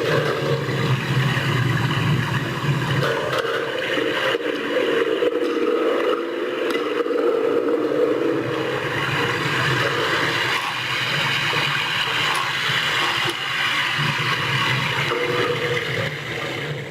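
Storm sound effects made with hand-held props: thunder and rain being made together, a continuous rumbling, rattling noise.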